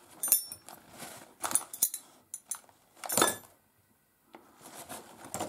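Metal spanners clinking and rattling against each other on a workbench as they are picked up and sorted through: several sharp clinks with a brief ring, the loudest about three seconds in.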